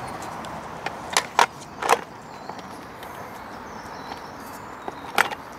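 Sharp plastic clacks and knocks as a chainsaw's plastic side cover is fitted back over the bar and chain: three in quick succession about a second in, and one more near the end.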